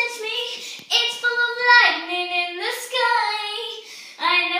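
A young girl singing in a high voice, holding long notes that slide up and down in pitch, with short breaks between phrases.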